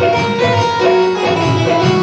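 Instrumental passage of a Hindi devotional bhajan between sung lines: held melody notes over a steady rhythmic beat.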